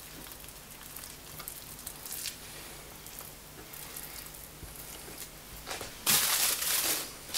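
Faint handling sounds of raw beef being folded and rolled into a roulade on a wooden cutting board, then a loud hissing noise for about a second near the end.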